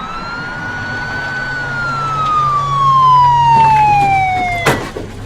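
Police car siren wailing: one quick rise in pitch, then a long slow fall, over a low hum. It ends at a sharp knock about four and a half seconds in.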